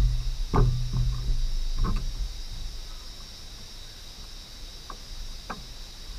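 A few scattered taps and knocks as a seasoning shaker is shaken and handled over fish fillets in a plastic tray, with a steady high insect drone underneath.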